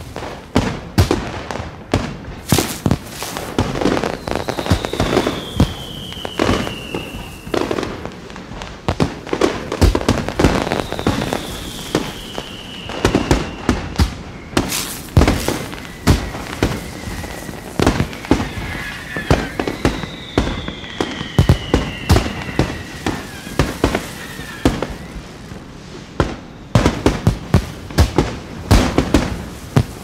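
Aerial fireworks display: a dense, continuous run of shell bursts and bangs with crackle. A falling whistle from a whistling firework rises above the bangs three times.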